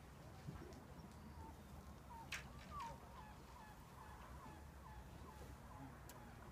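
A gull calling a quick run of short, hooked calls, two to three a second, from about two seconds in until shortly before the end, with one sharp click just before the calls begin.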